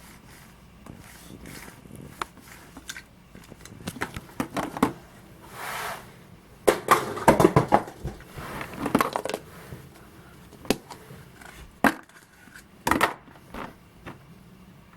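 Chocolate surprise eggs being unwrapped and broken open by hand: the foil wrapper crinkles and cracks in irregular bursts, with several sharp snaps and clicks.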